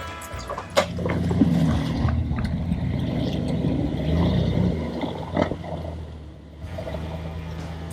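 Off-road Jeep engine running at low revs while rock crawling, the engine note rising and falling a little, with a couple of sharp knocks.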